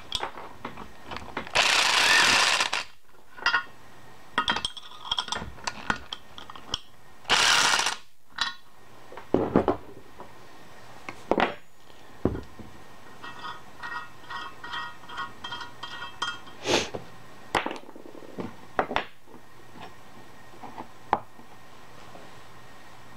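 Corded electric impact wrench running nuts down in two short bursts of hammering. Between and after them come sharp metallic clicks and clinks of steel parts and tools being handled on a steel workbench.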